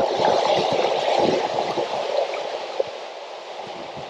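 Shallow seawater sloshing and splashing around wading legs, a steady churning that eases off over the last second or so.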